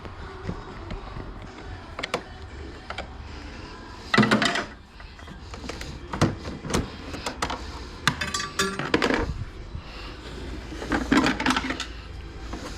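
Hands and tools working loose plastic dash panels and fasteners on a snowmobile: scattered clicks and knocks, with louder rattling clatters about four seconds in, around eight to nine seconds, and near eleven seconds.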